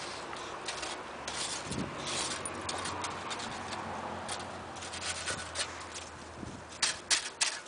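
American Pit Bull Terrier rooting and chewing at a deer carcass's fur: continuous rubbing and rustling with short scraping bursts, and a few louder sharp noises near the end.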